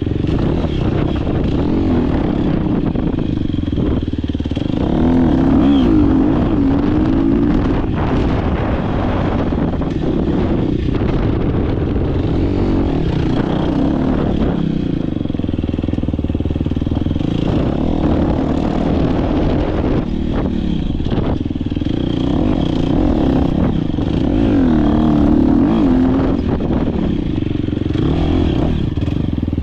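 Dirt bike engine under hard throttle, heard close from on board, its pitch rising and falling over and over as the rider accelerates, shifts and backs off through the turns of an off-road race course.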